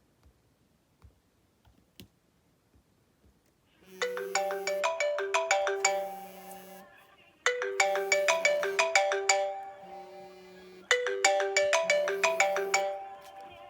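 iPhone 6 ringing for an incoming call with its old ringtone, a short melody of quick repeated notes over a low held note. It starts about four seconds in after near silence with faint clicks, and repeats about every three and a half seconds.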